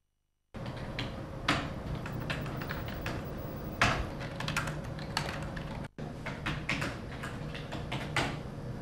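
Typing on a computer keyboard: irregular keystrokes, a few louder than the rest, over a steady low hum. The sound starts about half a second in after silence and breaks off for an instant near six seconds before the typing carries on.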